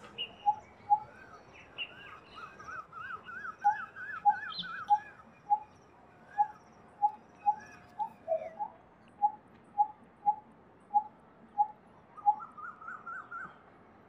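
Coppersmith barbet calling a steady series of single, evenly spaced notes, about two a second, with a short pause near the start. Another bird's rapid up-and-down trilling song sounds over it twice, once near the start and once near the end.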